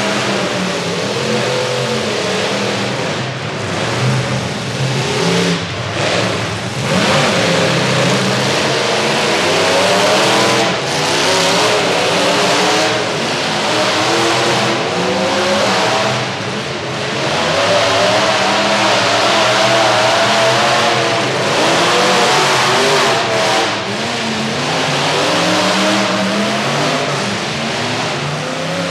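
Several full-size pickup truck engines revving hard and unevenly at once in a demolition derby, their pitches rising and falling over a dense, steady din.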